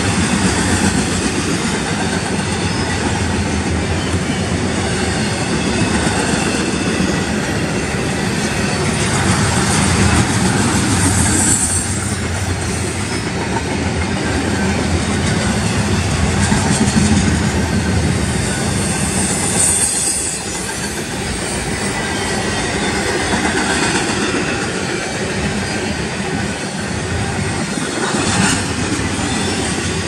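Double-stack intermodal well cars rolling past, their steel wheels rumbling and clattering steadily on the rails. Two brief high-pitched wheel squeals come through, about a third and two-thirds of the way in.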